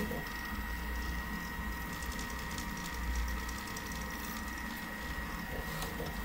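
RepRap-style 3D printer running a print: its stepper motors give a steady low hum and a thin high whine, with a spell of rapid fine ticking about two seconds in.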